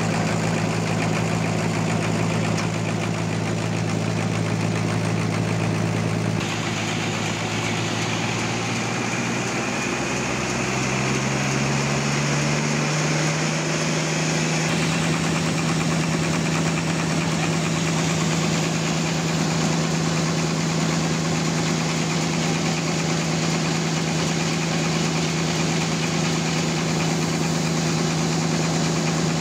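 Sawmill's engine running steadily. Its pitch rises from about eight to thirteen seconds in, then holds level.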